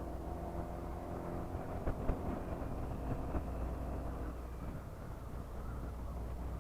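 Honda PCX scooter's single-cylinder four-stroke engine running on its stock exhaust while riding, a steady engine note over wind and road rumble. The note thins out in the last couple of seconds, and a few sharp knocks come about two to three seconds in.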